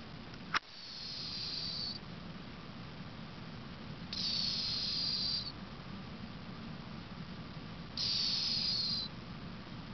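An 18-year-old cat snoring in its sleep: three high-pitched, hissing whistles roughly every four seconds, each about a second long and falling slightly in pitch. A sharp click about half a second in.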